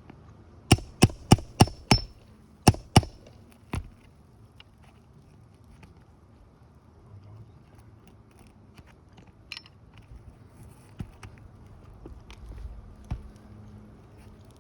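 Hammer striking a nail puller to drive it under roofing nails in the shingles: five quick sharp blows about three a second, then two more and a single one, followed by faint scattered taps and scrapes.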